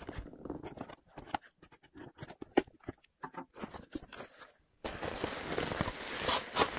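Cardboard shipping box being opened by hand: scattered scrapes and clicks of the tape and flaps, then about five seconds in a continuous rustling as the packing material inside is pulled out.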